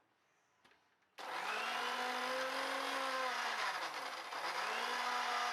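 Electric kitchen mixer grinder switched on about a second in, running at speed while grinding coriander chutney; its whine drops and then climbs back up about halfway through.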